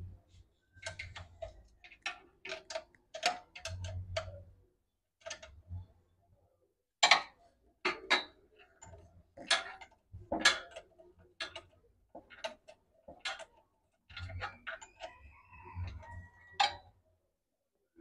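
Metal tools clicking, tapping and clinking against the generator's exhaust and steel heat shield while it is being bolted back on, in irregular sharp knocks, some with a brief metallic ring.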